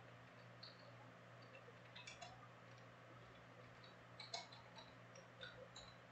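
Faint clicks and ticks of Topps Chrome trading cards being handled and sorted by hand, in small clusters about two seconds in and again just past four seconds, over a low steady hum.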